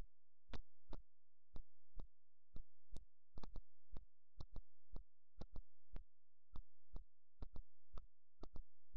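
Sharp clicks at irregular intervals, about two a second and sometimes doubled, over a steady low electrical hum.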